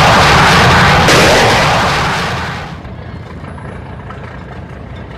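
Fighter jet's engine roar on a very low pass, very loud at first, then dying away after about two and a half seconds into a low rumble.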